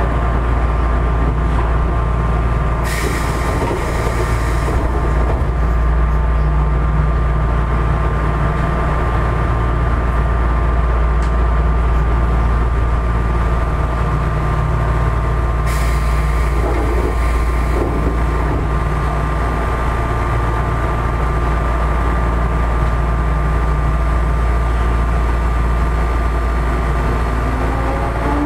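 Odakyu 1000-series electric train standing at a station with its traction motors silent: a steady drone of the car's air conditioning under a constant electrical whine. Two brief hisses of compressed air come about three seconds in and again about sixteen seconds in, as the pneumatic doors open and then close.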